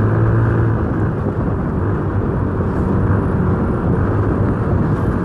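Yamaha Mio scooter's single-cylinder four-stroke engine running steadily while riding, with rushing wind and road noise over it.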